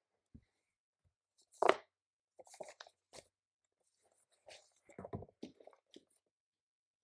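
Objects being handled on a desk: a loud crunchy rustle a little under two seconds in, then two clusters of small crunches, clicks and knocks.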